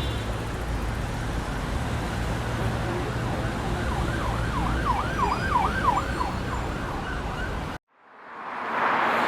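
Street traffic rumble with an emergency vehicle's siren in yelp mode, rapid rising-and-falling wails from about four to seven seconds in. Near the end the sound cuts out abruptly and a louder traffic hiss fades in.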